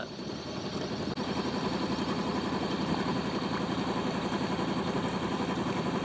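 A yacht's 16-horsepower Yanmar inboard diesel running steadily, with an even, rapid pulse.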